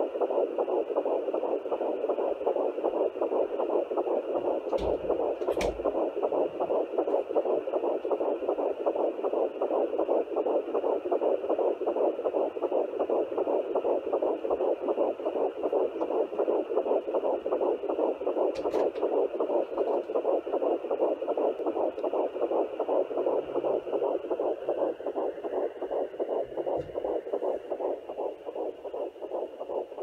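Fetal heartbeat through the speaker of a Sonoline B pocket fetal Doppler, a fast, even pulsing at about 140 beats a minute. A couple of short knocks come from the probe being handled.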